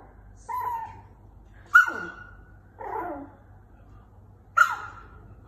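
A dog giving short, high yips and whines, four in all, the loudest about two seconds in and again near the end.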